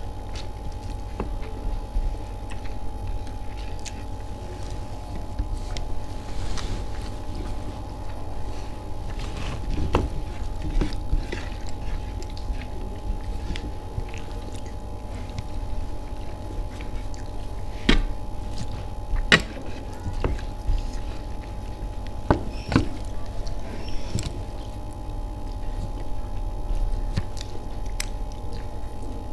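Eating sounds: chewing and scattered sharp clicks, the loudest about two-thirds of the way in, over a steady low hum and a steady tone.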